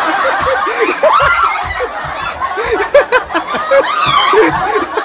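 People laughing in quick bursts of snickers and chuckles, with a few scattered knocks from a soft straw broom being swung at a cockroach on a wooden floor.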